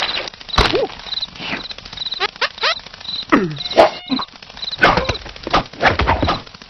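Cartoon soundtrack of wordless, squeaky character vocalizations that slide up and down in pitch, punctuated by several sharp comic knocks and thuds. A short high chirp repeats about once a second in the background.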